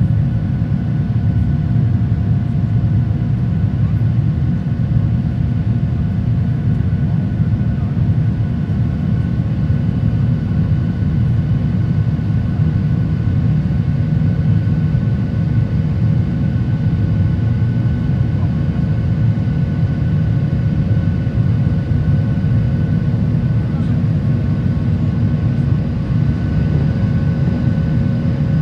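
Cabin noise of a Boeing 737-800 climbing out after takeoff, heard from a seat over the wing: a steady, deep rumble of its CFM56-7B engines and rushing air, with faint steady whines above it.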